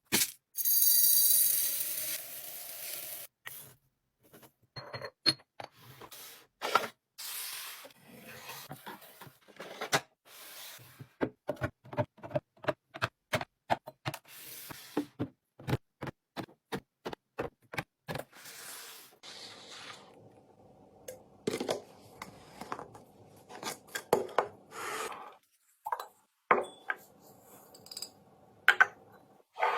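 Household items being handled during restocking: containers, lids and packaging are picked up and set down in a string of clicks, knocks, rubs and rustles. Midway comes a quick run of evenly spaced taps, and in the last third a steady hum sits under the handling.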